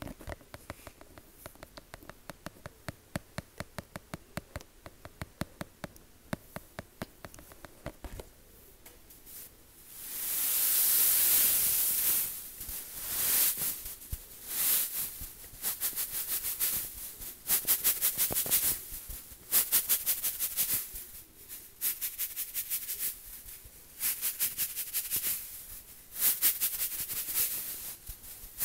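Rapid tapping, several small sharp taps a second, for about the first eight seconds. From about ten seconds in it gives way to louder stretches of fast, hissing, scratchy texture that start and stop every second or two.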